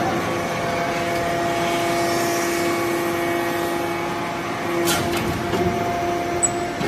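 Hydraulic power unit of a metal-chip briquetting press running: its electric motor and pump give a steady hum of several fixed tones. A single short knock sounds about five seconds in.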